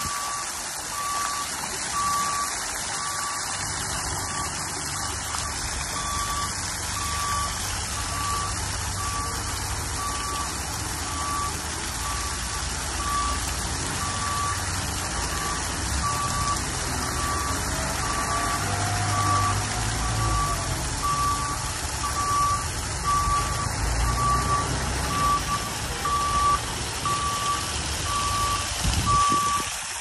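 An electronic beep at one steady, high pitch, repeating about once a second over a steady rushing noise.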